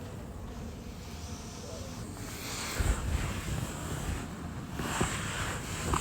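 A person snoring: two long, rasping breaths, one starting about two seconds in and the next about five seconds in.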